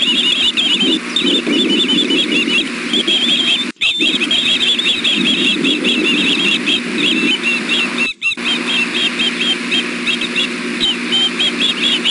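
Young ospreys food-begging: a continuous chorus of rapid, high, repeated chirping whistles from several birds at once, over a steady low hum. The sound cuts out for an instant twice, about four and eight seconds in.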